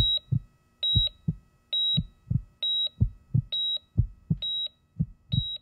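Heartbeat sound effect with a heart-monitor beep: a short high beep about every 0.9 seconds, seven in all, each paired with a low double thump like a lub-dub.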